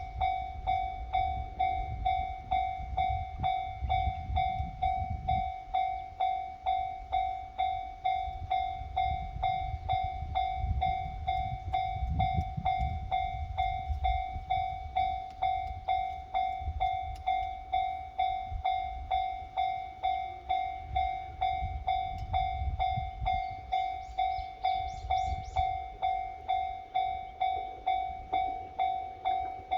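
Japanese level-crossing warning bell ringing: an electronic clanging tone struck steadily at just under two strikes a second, with low rumbling at times beneath it.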